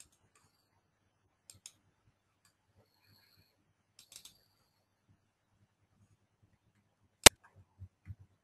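Sparse clicks of a computer mouse and keyboard: a few soft clicks in the first half, then one sharp, louder click about seven seconds in, followed by a few fainter ones.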